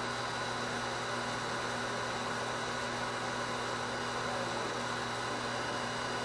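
Steady electrical hum with a constant hiss beneath it; nothing else sounds.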